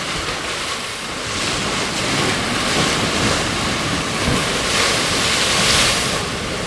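Ocean waves surging into a narrow rock pool cut into a lava field and crashing against the black lava rock. The surf swells steadily and is loudest about five to six seconds in, as a wave bursts into spray.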